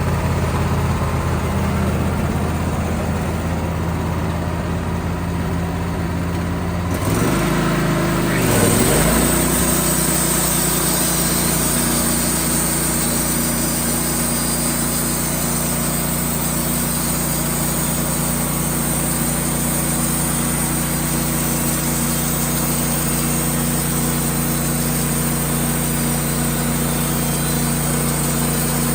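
Sawmill engine running steadily. About seven seconds in its pitch dips briefly and then settles at a new steady speed, with a brighter hiss on top from then on.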